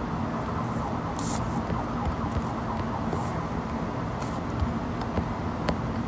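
Steady background hum and noise, with a few faint, brief rustles.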